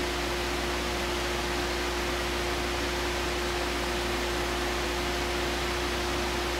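Peugeot 208's electric radiator cooling fan running steadily, a constant rushing hiss with a steady hum, over the running 1.2 three-cylinder engine. The fan has been forced on because the engine management has dropped into default mode.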